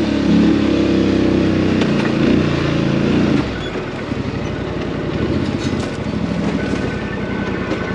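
ATV engine running at raised revs, then dropping suddenly about three and a half seconds in to a lower, evenly pulsing idle.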